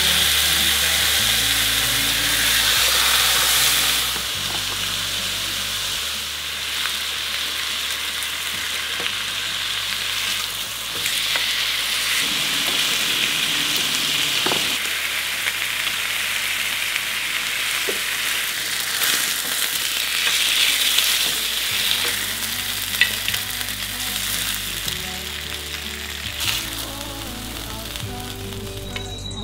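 LA galbi, cross-cut beef short ribs, sizzling as they fry in a pan, loudest in the first few seconds, with a few light clicks.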